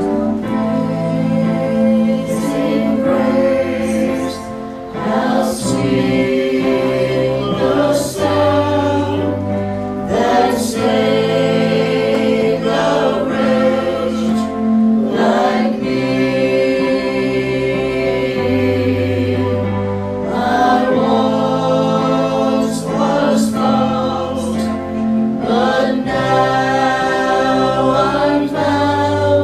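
A small church vocal group singing a worship song together into microphones, over an instrumental accompaniment with held bass notes that change every couple of seconds.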